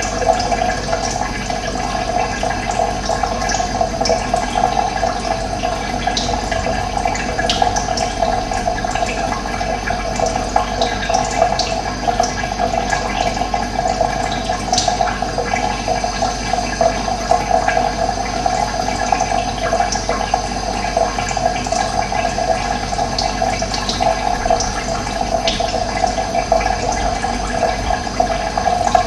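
Running water flowing steadily with an even, continuous rush, and brief high-pitched chirps scattered over it.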